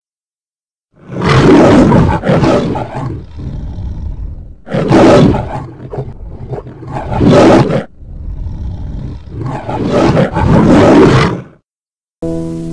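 A lion roaring in several loud bursts, like a film-studio logo lion, after about a second of silence. Sustained music comes in just before the end.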